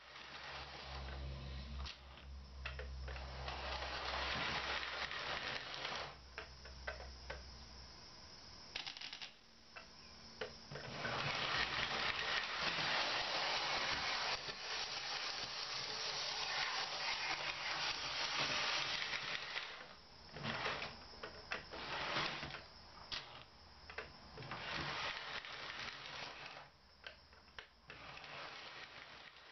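O27 model train running on three-rail tinplate track: the small locomotive's motor whirring and its wheels clicking and rattling over the rails. The sound swells and fades as the train moves, slows and stops, with a low hum in the first several seconds and a run of sharp clicks in the last third.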